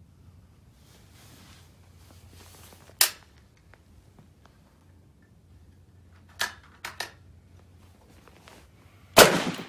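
Gunshots: a sharp crack about three seconds in, a few fainter cracks between six and seven seconds, and the loudest shot near the end, with a long echo. That last shot is a Rock River Arms .308 semi-automatic rifle firing a hand-loaded round.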